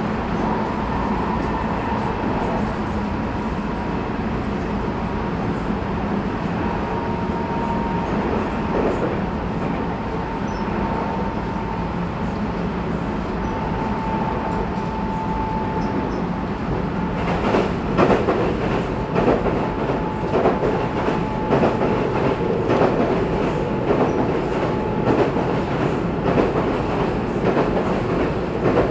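Tobu 20400 series electric train running at speed, heard from inside a motor car: a steady motor-and-wheel rumble with a thin high whine held over it. From a little past halfway, wheels clack over rail joints in quick irregular runs and the sound grows rougher.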